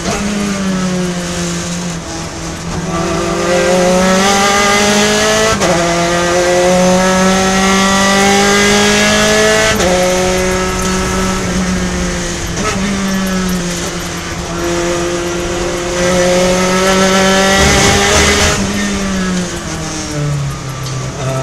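A Gen3 Spec Racer Ford's engine running hard at racing speed, heard from on board. The pitch climbs steadily under throttle and then drops sharply, four times over.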